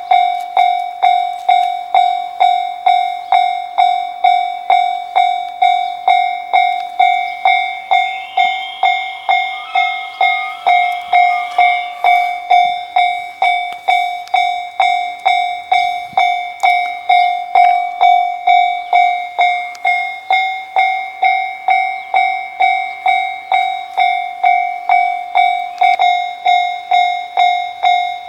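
Japanese railroad level-crossing warning alarm ringing its electronic chime steadily, about two strikes a second, without a break.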